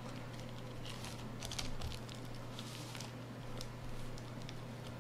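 Fingers pressing and spreading sticky sushi rice onto a nori sheet on a bamboo mat sealed in a plastic bag: soft pats, squishes and light crinkles of the plastic, busiest in the middle, over a steady low hum.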